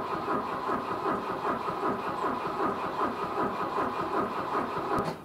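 Starter motor cranking the cold carbureted B23A four-cylinder engine of a 1986 Volvo 245 at -14°C, with an even rhythm of about three compression pulses a second under the starter's whine. The engine does not catch, and the cranking stops with a click near the end.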